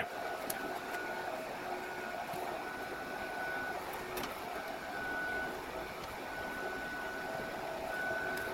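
Mikrosha 2000 induction heater running with its coil around the steel pulley of a washing-machine motor, giving a steady high whine with a fainter lower hum that now and then drops out and returns. A sharp click right at the start.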